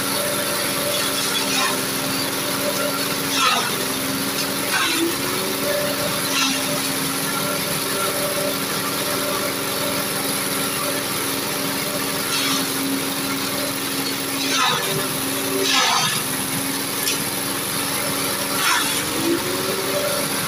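Engine-driven grass chopper running steadily while leafy branches are fed into it, with short crunching bursts of cutting every few seconds. The engine note sags under the load and picks back up a few times.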